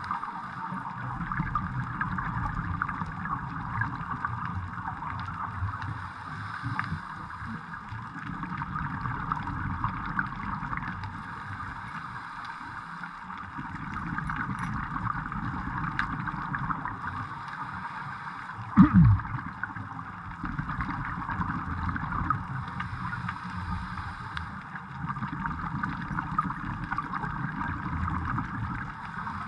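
Underwater ambience on a scuba dive: a muffled low rumble that swells and fades, with a steady fine crackle over it. About two-thirds of the way through, a brief louder low sweep drops in pitch.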